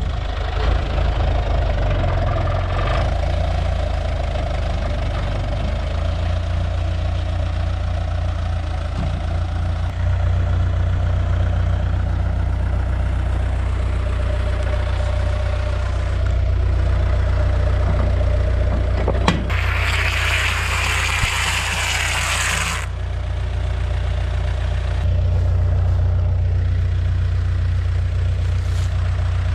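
Tractor diesel engine running steadily at idle while a round bale wrapper works, with a steady hum above the engine's rumble. About two-thirds of the way through, a sharp click, then a loud hiss lasting about three seconds.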